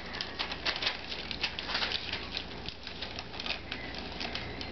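Old English Sheepdog puppies eating milk-softened kibble together from a metal pan: a busy, irregular patter of lapping, chewing and small clicks of food and teeth against the pan.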